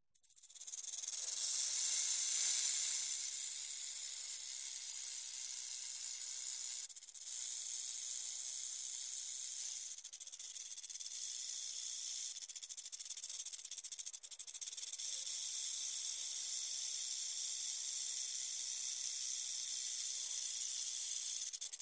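Snake hissing: a long, continuous, high-pitched hiss that starts about half a second in, is loudest around two to three seconds in, and breaks off briefly twice, near 7 and 10 seconds in.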